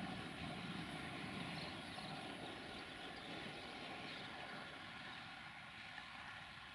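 A UAM216 rail maintenance vehicle hauling a herbicide-spraying wagon, running away along the track. Its low running noise fades steadily, dropping away about five seconds in.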